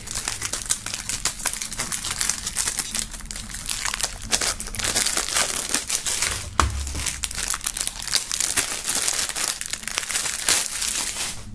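Cellophane shrink-wrap being peeled and crumpled off plastic CD jewel cases: a dense, irregular run of crinkling and crackling, with a single low knock about six and a half seconds in.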